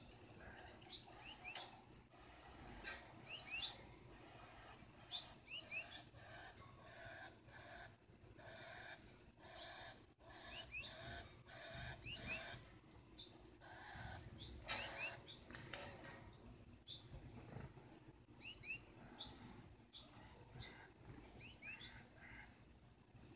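Gouldian finches calling: about eight sharp, high chirps, each a quick run of two or three notes, with fainter buzzy chatter between them. This is the hen fussing at her mate from inside the nest box.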